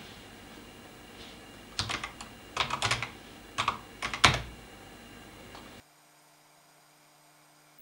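Keystrokes on a computer keyboard: a few quick runs of key clicks, ending in one single, louder keystroke about four seconds in. Near the end the sound cuts off abruptly to a faint hiss.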